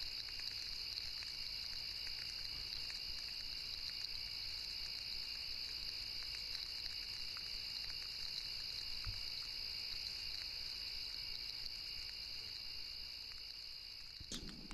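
Bose Sleepbuds playing a steady, high, cricket-like masking sound through their tiny earbud speakers at full volume. A click comes near the end.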